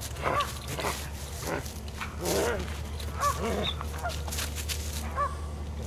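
A dog whining in a run of short calls that each rise and fall in pitch, about half a dozen of them, the longest a little past two seconds in.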